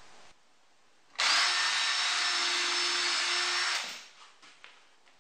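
Cordless drill running at a steady speed for about two and a half seconds, then winding down.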